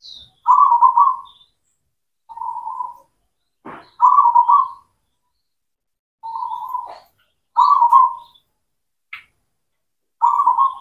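Zebra dove (perkutut) singing: six short, trilled cooing phrases spaced a second or two apart, softer phrases between louder ones.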